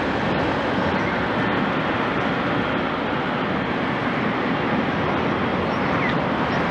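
Boeing 777-300ER's GE90 turbofans running at taxi thrust: a steady, even engine noise that holds its level throughout.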